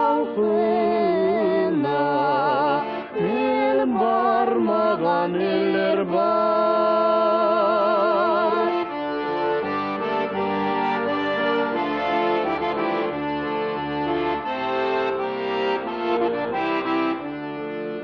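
Music: a melody line with a wavering vibrato over sustained notes, giving way about nine seconds in to steadier held chords, then fading out near the end.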